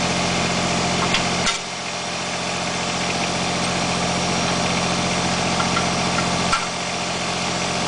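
Kubota BX24 tractor's three-cylinder diesel engine idling steadily. A short click comes about a second and a half in and another near the end, each followed by a brief dip in the engine's low hum.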